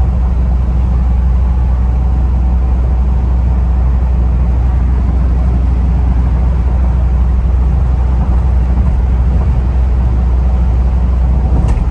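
Steady in-cabin drone of a 1996 Mitsubishi Challenger cruising at highway speed: its 4M40 2.8-litre turbo-diesel inline-four running under a constant low rumble, mixed with road and wind noise.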